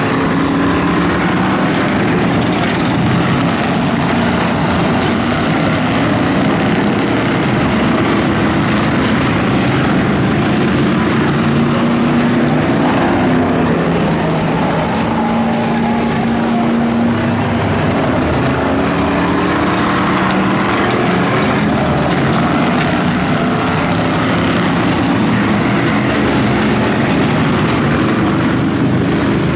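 A field of V8 race cars running laps together, many engines droning at overlapping pitches that drift up and down without a break.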